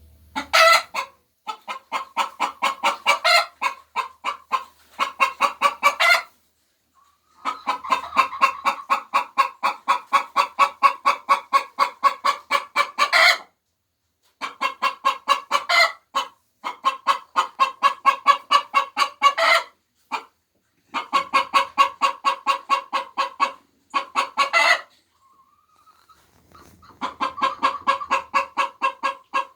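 Domestic hen singing her egg song: bouts of rapid, repeated clucks, several a second, each bout often ending in a louder, sharper squawk, with short pauses between bouts. The egg song is the call hens give around laying an egg.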